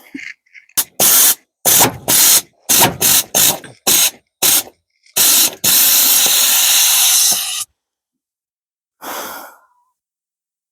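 Pneumatic air ratchet run in quick short bursts with a hiss of compressed air, then in one longer run of about two seconds and one more short burst near the end.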